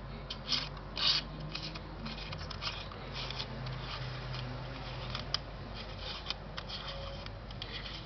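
Yashica Electro 35 CC camera being handled, fingers turning the lens rings: irregular scratchy rubbing and small mechanical clicks, the loudest about a second in and a sharp single click past the middle.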